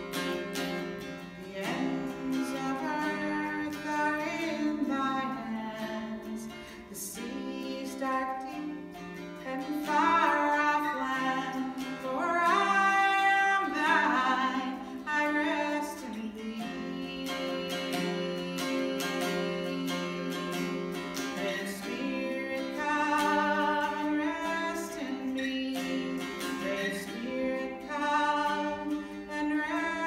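Appalachian mountain dulcimer playing a slow melody over its steady drone strings, the notes ringing on.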